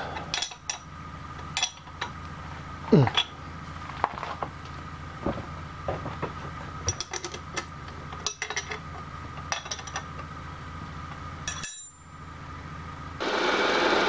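Wrench clinking and clanking on steel nuts and the milling machine table as hold-down bolts are tightened, in scattered metallic knocks over a steady machine hum. Near the end a milling machine's end mill starts cutting the metal bar with a loud, steady noise.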